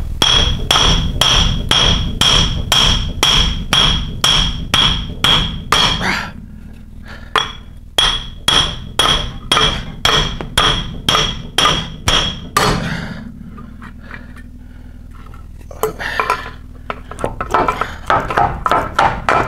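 Hammer blows on metal, driving out a stuck seal from a Land Rover Defender 90 rear hub: two long runs of even, ringing strikes, about two and a half a second, with a short pause between them. After a lull, irregular metallic clattering near the end.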